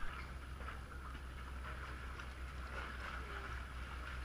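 Muffled, watery noise with a steady low hum, heard through a camera sitting at the pool's waterline, partly under the water.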